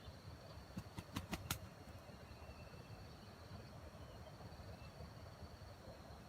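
Faint background hush with a thin, steady high tone, and four short, faint clicks in quick succession about a second in.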